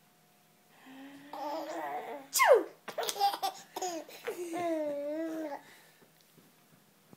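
Nearly seven-month-old baby laughing and squealing in a run of bursts, starting about a second in and dying away after about five seconds.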